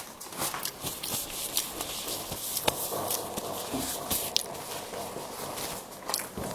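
Close-miked eating sounds: irregular mouth clicks and smacks of chewing.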